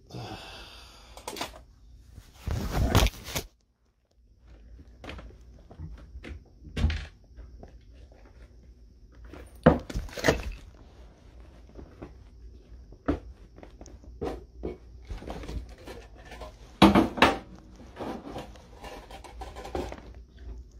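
Irregular knocks, thunks and clatter of objects being handled and moved about, mixed with the rubbing of the phone itself being handled; the loudest clatter comes about 3 s in and again about 17 s in, and the sound cuts out completely for about half a second after the first.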